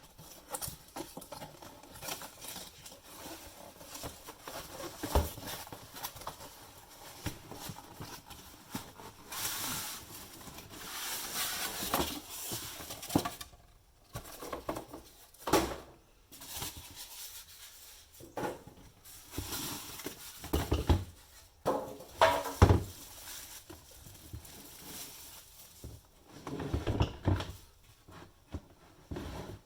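Irregular handling noises: knocks, taps and clicks, with stretches of rustling, as a boxed induction cooktop is unpacked and set down on a bench.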